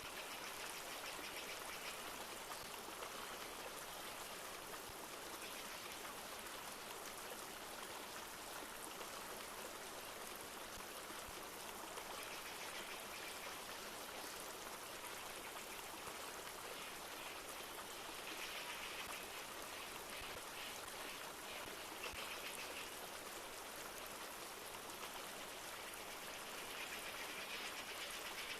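A river flowing steadily, with light rain falling. Short spells of a rapid high trill come and go every few seconds.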